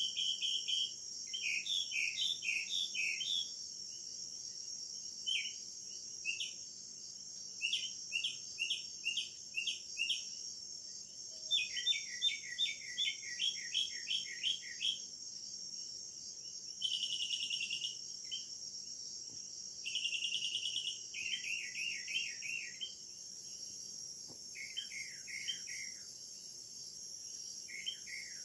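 A steady, high-pitched insect chorus with repeated runs of quick chirping calls over it. The chirps come in series of several fast notes every second or two, and twice they become a short buzzing call.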